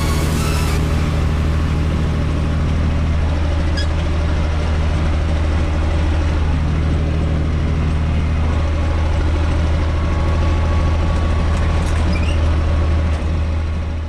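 UTB 445 tractor's three-cylinder diesel engine running steadily under the load of a rotary tiller working the soil, heard from inside the cab as a loud, even low hum.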